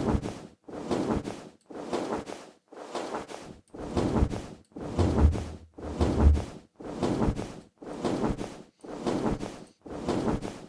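Designed dragon wing-flap sound effect playing back on repeat: about one whooshing flap a second, each with a low thump under it. Two flaps near the middle carry a deeper bass boom.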